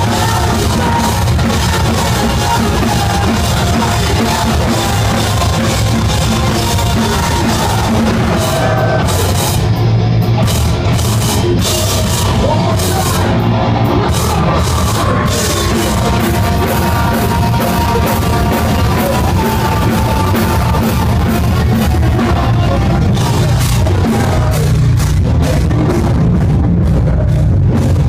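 Metalcore band playing live at full volume: distorted guitars, heavy drums and a singer's vocals, recorded from inside the crowd on a phone, so it sounds harsh and overdriven. Towards the end the drums hit in a steady, evenly spaced pattern.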